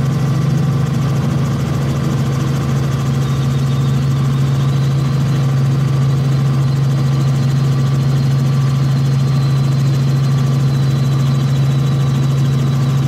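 Cabin noise of a Robinson helicopter as it climbs out after takeoff, as recorded by its cockpit camera system: a loud, steady drone of engine and rotors with a faint high whine.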